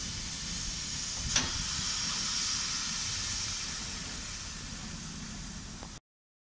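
Steady hiss of steam escaping from the cylinder drain cocks of LMS Royal Scot class steam locomotive 46115 Scots Guardsman, with one sharp click about a second and a half in. The sound fades a little, then cuts off suddenly near the end.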